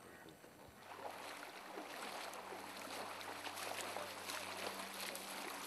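Floodwater splashing and sloshing, with many small splashes that grow louder from about a second in, over a faint steady low hum.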